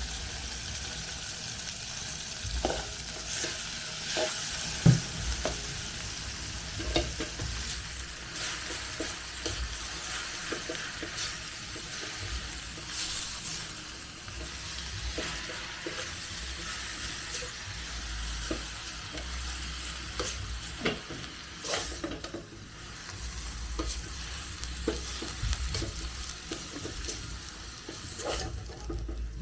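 Kienyeji leafy greens sizzling as they fry in a pan, stirred with a spoon that scrapes and taps against the pan at irregular intervals.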